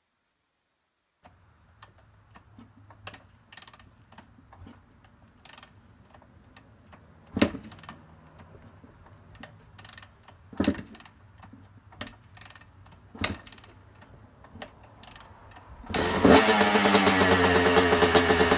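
2000 Yamaha YZ250 single-cylinder two-stroke dirt bike being kickstarted from cold: a string of kicks, each a thump, several of them loud, then near the end the engine fires and catches, revving up and down.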